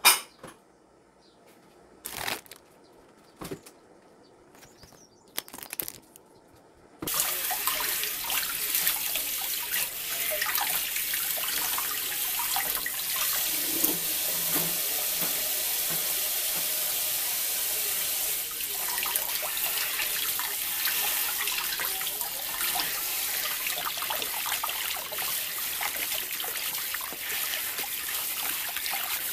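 A few light clicks and knocks, then about seven seconds in a tap is turned on and water runs steadily into a sink.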